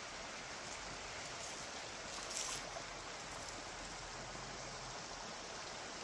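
Small woodland runoff stream trickling steadily, with one short louder hiss a little over two seconds in.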